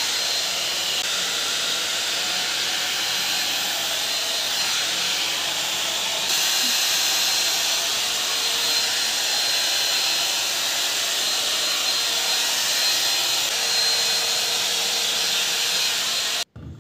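Hair dryer blowing steadily, a rush of air with a faint high whine, cutting off suddenly just before the end.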